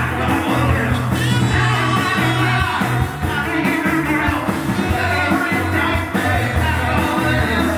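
Live rock band playing a song: a singer's vocal over electric guitars, drum kit and hand-played congas, with a steady bass line.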